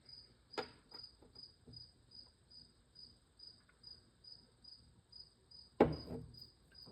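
A chirping insect, steady and high-pitched at about two chirps a second, with a light click near the start and one sharp knock about six seconds in.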